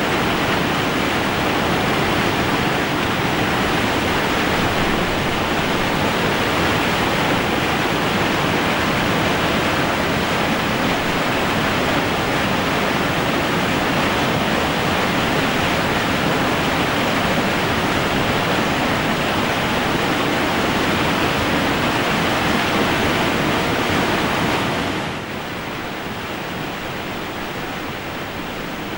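The Merced River's whitewater rushing over the granite lip of Nevada Fall, a loud, steady rush of water. About 25 seconds in it changes to a softer, duller rush of the falls heard from farther off.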